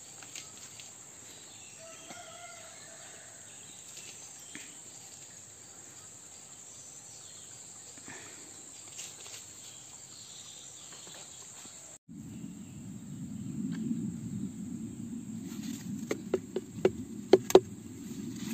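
Steady, high-pitched drone of insects. About two-thirds through, the sound cuts off abruptly, and a louder low rumbling noise with a run of sharp clicks takes over.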